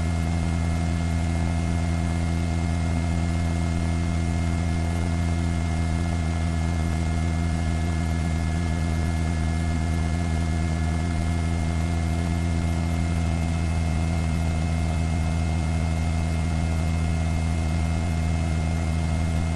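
News helicopter's engine and rotor noise: a steady, unchanging drone with a strong low hum and several fixed higher tones.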